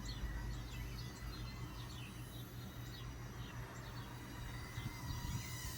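Small birds chirping in a quick series of short, high, downward-sweeping notes over wind rumbling on the microphone.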